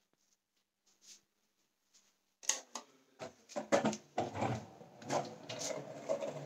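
A few faint clicks, then from about two and a half seconds in a skateboard clattering and rolling across a wooden floor: a run of sharp knocks over a low rolling rumble.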